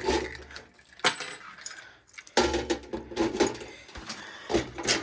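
A set of keys jangling and clinking as they are handled, with a few sharp metallic clicks.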